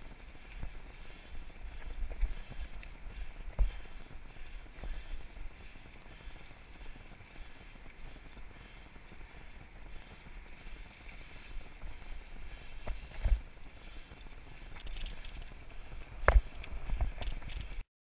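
Mountain bike ridden over a leaf-covered dirt trail: a steady low rumble of the ride with scattered knocks and rattles from the bike over bumps, the loudest about sixteen seconds in. The sound cuts off suddenly just before the end.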